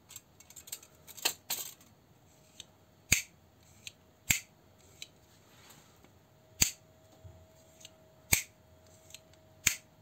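Push-button automatic folding knife's blade being snapped open and clicked shut over and over: five loud, sharp metallic clicks a second or two apart, with softer clicks and handling in the first two seconds.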